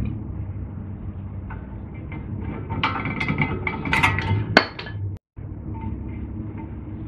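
Metal clinks and scrapes as a screwdriver pries the brake pads out of a caliper bracket, with a sharp metallic knock a little past halfway.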